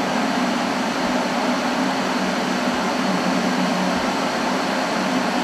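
Electric kettle heating water, a steady rushing hiss.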